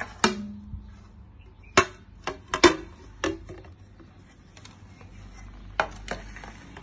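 A glass baking dish and a ceramic serving platter knock and clink together as a baked cake is turned out of the dish. There are about nine sharp clinks and taps, bunched most closely between about two and three and a half seconds in.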